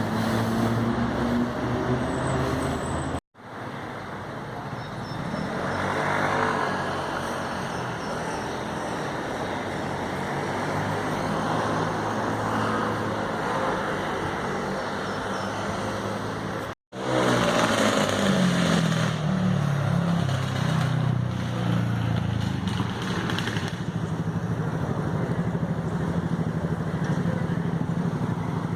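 Motorcycles with loud aftermarket exhausts passing in street traffic, their engines revving up and down. The sound drops out briefly twice, about 3 and 17 seconds in, where separate passes are cut together.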